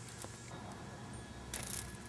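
A cat pawing and batting a cicada about on carpet: soft taps and scuffs, with a short scratchy rustle a little past halfway.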